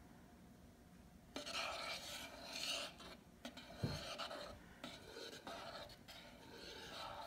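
Metal spoon stirring and scraping through thickening clear glue and activator in a plastic bowl: an uneven rasping scrape that starts about a second and a half in, with one knock partway through.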